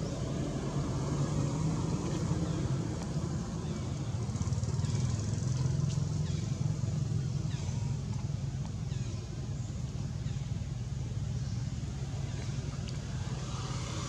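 Steady low hum of a running motor engine. Faint, short, high falling chirps come every second or two above it.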